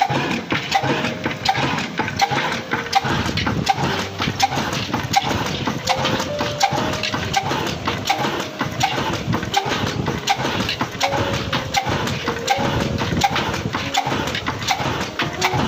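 Old Ruston horizontal oil engine running steadily while belt-driving a water pump, a rhythmic knocking beat of several strokes a second. A melody of short notes shifting in pitch runs over it.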